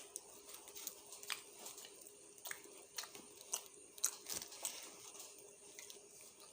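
A person chewing and biting into a hamburger, close to the microphone: a string of short, irregular wet clicks and soft crunches from the mouth.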